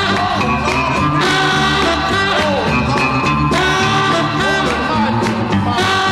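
Background music: a song with a singer over a band with a steady beat.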